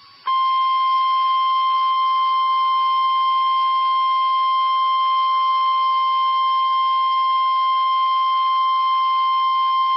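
NOAA Weather Radio warning alarm tone, a single 1050 Hz tone. It sounds as one loud, steady, unbroken beep starting a moment in, the signal that a warning message is about to be broadcast.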